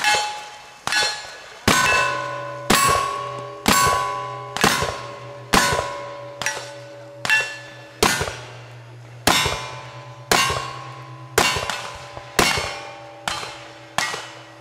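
Revolver shots fired about once a second, each hit followed by the ringing of struck steel targets, the rings overlapping into a steady metallic hum.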